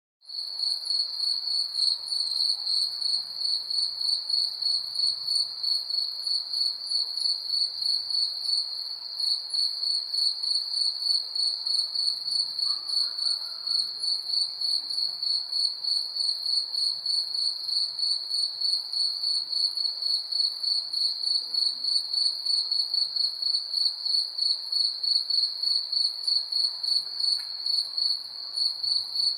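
Crickets chirping steadily in a fast, even pulse, about three to four chirps a second, with a fainter, higher-pitched insect trill above them.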